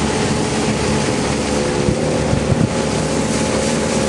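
Boat motor running steadily under way, with wind and water wash over it. Its note steps up slightly about two seconds in, and a few brief knocks come around the same moment.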